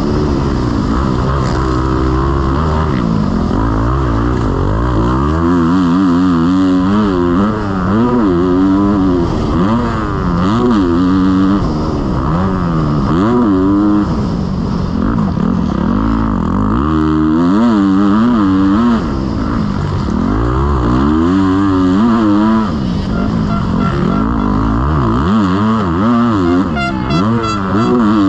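Motocross bike engine at racing speed, revving up and falling back again and again as the throttle is opened and closed.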